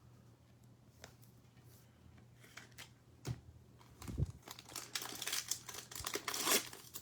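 Trading-card pack wrapper being torn open and crinkled. It starts about four seconds in, after a couple of soft thumps.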